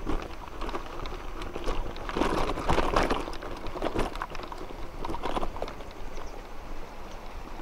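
Mountain bike rolling downhill over bumpy grass, its frame and parts rattling and knocking unevenly, busiest about two to three seconds in.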